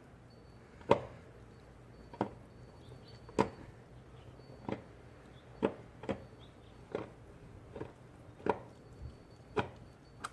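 Sharp knocks and clicks at irregular intervals, about one a second, from a screwdriver and the plastic stock airbox being worked loose.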